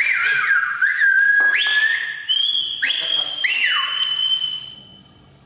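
High whistle-like tones, several at once: a series of notes that start sharply and glide down in pitch, then a long held high tone that fades away near the end.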